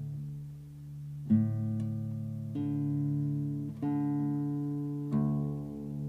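Classical guitar plucked four times, a little more than a second apart, each note or chord left to ring on. Under it runs a low hum that swells and fades about every two seconds.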